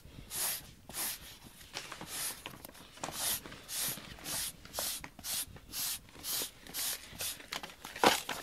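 Urethane pet-hair removal brush scrubbed back and forth over a carpet-topped foam mat, a hissing rub at about two strokes a second as it pulls up embedded cat hair. A louder knock comes near the end.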